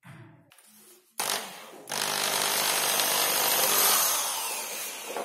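Small handheld electric drill with a thin 2.5–3 mm bit boring a guide hole into a plywood cabinet door, to centre the hinge-cup cutter. There is a knock about a second in. The motor starts about two seconds in, runs steadily while cutting into the wood for about three seconds, and fades near the end.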